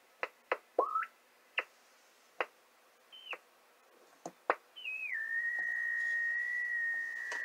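Millen 90651 grid-dip meter's signal heard as a CW beat note through an AOR AR8600 receiver while the meter's thumb wheel is tuned toward the receiver's frequency. There is a string of short chirps and whistles as the signal sweeps past. About five seconds in, a whistle glides down and settles into a steady tone as the meter comes onto the receiver's frequency.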